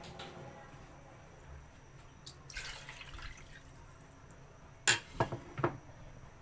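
Kitchen sounds at the cooking pot: water dripping and splashing, then three sharp clinks close together about five seconds in.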